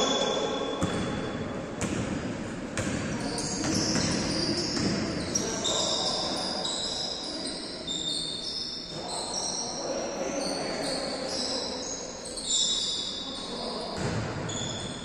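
Basketball bouncing on an indoor court, with sneakers squeaking and players calling out, all echoing in a large gym. There are sharp thuds of the ball early on and short high squeaks throughout.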